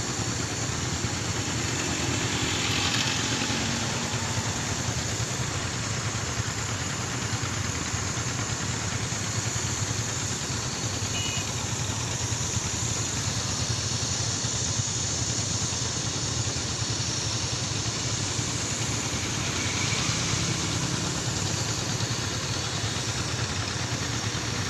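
A vehicle engine running steadily at idle under a constant wash of noise, with no distinct events.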